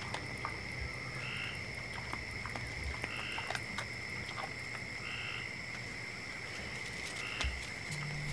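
Night-time outdoor animal chorus, likely frogs and insects: a steady high-pitched trill, with a short call repeating about every two seconds and scattered faint clicks.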